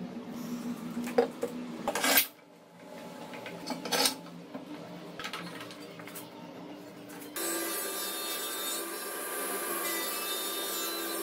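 A few sharp knocks and clicks with rubbing as glue is worked onto pallet boards and steel bar clamps are tightened. About seven seconds in, the sound cuts to an Ayza Mızrak sliding table saw running steadily.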